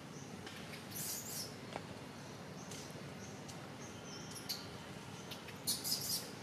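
Steady forest background hiss with short high-pitched squeaky chirps, one about a second in and a few close together near the end.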